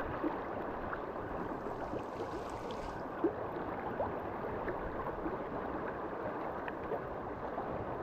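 Flowing river water: a steady, even wash of running current, with a few small clicks and one sharper tap about three seconds in.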